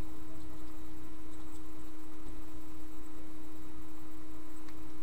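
A steady electrical hum: one constant, unwavering tone over a low rumbling hiss, with nothing else of note.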